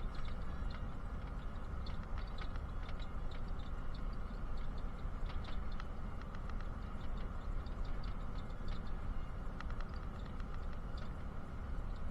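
Steady low rumble of a moving bus heard from inside the cabin, with scattered light ticks and rattles on top.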